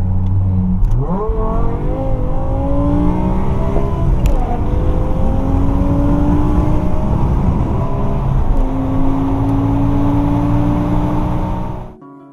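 BMW M5 E60's V10 exhaust accelerating hard through the gears: a steady engine note that starts to climb about a second in, drops at an upshift twice and climbs again each time.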